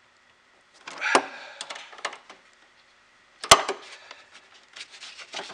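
Wrench and battery terminal hardware clinking and knocking as the terminal connections are rechecked for tightness: a cluster of short clicks about a second in, then one sharp, loud knock about three and a half seconds in, followed by scattered lighter clicks.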